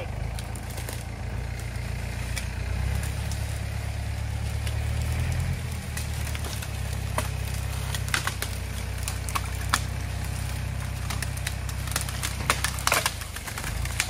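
An engine idling steadily: a low hum that shifts slightly a couple of times. Scattered sharp crackles and snaps of dry leaves and twigs, most of them in the second half.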